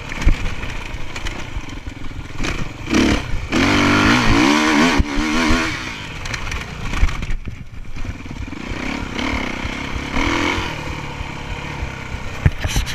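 Motocross dirt bike engine revving up and down as the bike is ridden around a dirt track, loudest and most varied about four seconds in. The sound is picked up by a chest-mounted camera, with rushing wind and knocks from the ride underneath.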